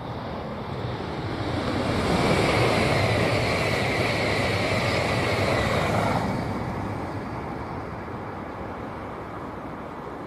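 Sanyo Shinkansen Mizuho bullet train passing at speed over a river bridge: a rushing roar that swells in about two seconds in, holds for about four seconds, then fades away.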